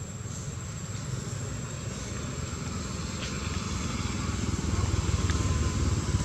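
Low engine rumble of a motor vehicle running nearby, growing louder about two-thirds of the way through, with a faint steady high whine over it.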